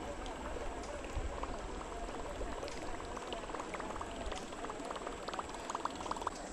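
Berkley Choppo topwater lure reeled across the surface, its spinning prop tail churning the water with a steady gurgle and a patter of small clicks that thickens toward the end.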